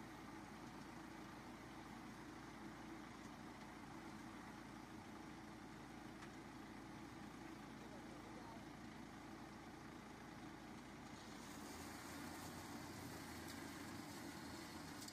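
Tractor engine running steadily, heard faintly. A brighter hiss joins it about eleven seconds in.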